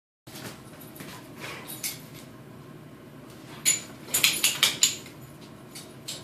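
Two huskies play-fighting, their collar tags jingling and claws clicking on a tile floor, with a quick run of loud clinks and knocks about four to five seconds in.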